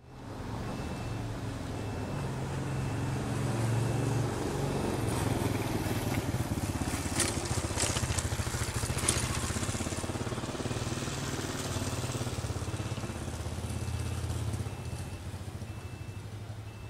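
Small underbone motorcycle engine running as it rides past on the street. It grows louder over the first few seconds and eases off near the end.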